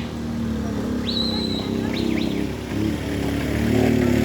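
Birds chirping: a whistled note that rises and holds about a second in, then a few short chirps, over a steady low hum.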